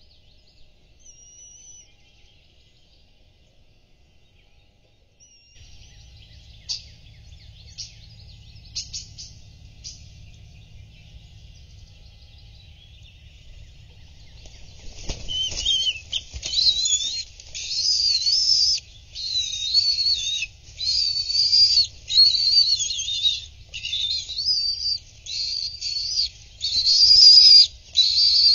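Bald eagle eaglet's food-begging calls: loud, high, wavering cries repeated about once a second, starting about halfway through, as an adult arrives with a food delivery.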